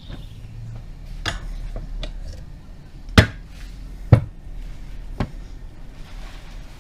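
Four sharp knocks, spaced about a second apart, the second and third much the loudest: tools striking metal while steering parts are taken apart.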